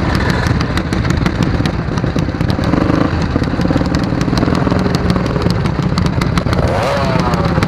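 Motorcycle engine idling loudly, its exhaust giving a rapid, uneven popping beat over a steady low rumble.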